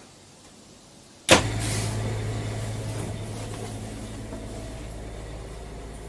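A sudden sharp knock about a second in, then a steady low mechanical hum that slowly fades.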